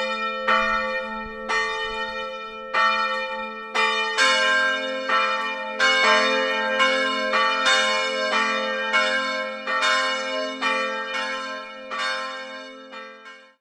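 Church bells ringing, about two strikes a second, each with a long ringing hum. A second bell of slightly higher pitch joins about four seconds in. The ringing fades near the end and cuts off suddenly.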